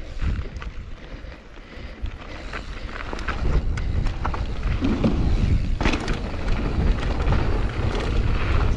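Wind buffeting the action camera's microphone and the rumble and rattle of a mountain bike rolling down a dirt trail, growing louder as it gains speed. Scattered clicks of the bike over bumps, with a sharp knock about six seconds in as it rolls over a wooden ramp drop.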